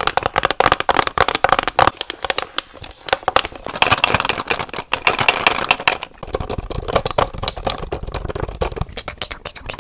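Fingernails tapping quickly on a hard plastic heart-shaped box held close to the microphone: a dense run of small clicks, with a low rumble of handling in the second half.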